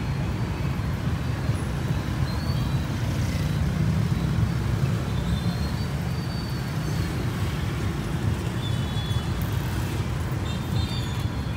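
Steady low rumble of street traffic, with a few faint short high chirps now and then.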